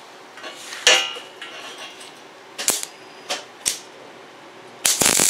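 A few sharp metal clicks and clinks on the steel bracket. Near the end a welding arc strikes up with a loud, steady hiss as the next short stitch weld is laid.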